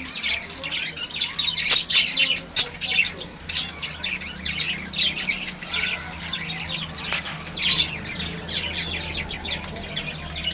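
Birds chirping and squawking in many short, sharp, irregular calls, over a low steady hum.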